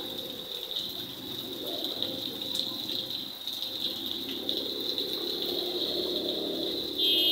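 Steady rain falling on a wet paved street and pattering on a shopfront awning. A brief, louder high-pitched sound comes near the end.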